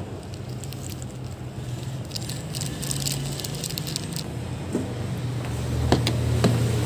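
Foil seasoning sachets crinkling as they are squeezed out over a bowl of instant noodles, with a few sharp clicks in the last couple of seconds. A steady low hum runs underneath.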